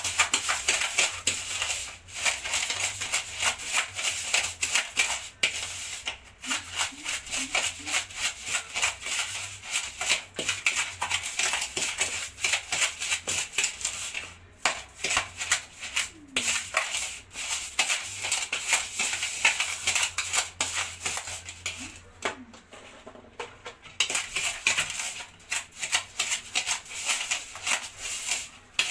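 A spoon beating and scraping against a plastic mixing bowl in rapid strokes as margarine and sugar are creamed by hand for a cake batter, with a couple of brief pauses.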